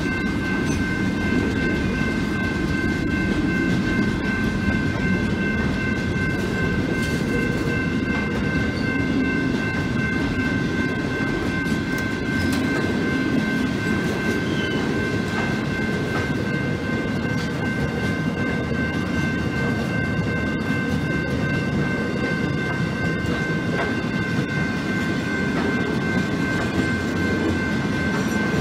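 Container freight train's wagons rolling past: a steady low rumble of wheels on rail, with a steady high whine running over it.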